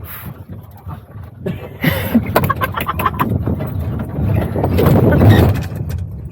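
A motor vehicle rumbling, with rattling and knocking that grows louder to a peak shortly before the end, then eases off.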